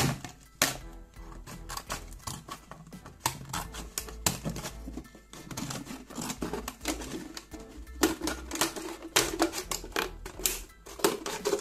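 Scissors cutting through a thin plastic bottle: a run of irregular crisp snips and crackles as the plastic is cut, over background music.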